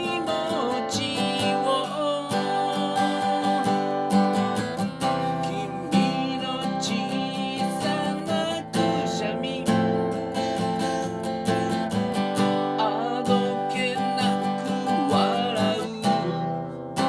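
Acoustic guitar music: a guitar strummed in a steady rhythm, with a wavering melody line over it.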